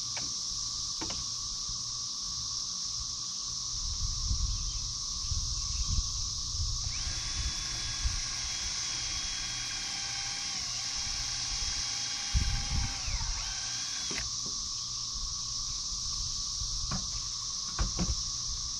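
Cordless drill driving a screw into a wooden rafter: the motor whines steadily for about seven seconds in the middle, dipping briefly in pitch partway, then stops abruptly. A steady high insect buzz runs underneath, with a few low bumps and light clicks.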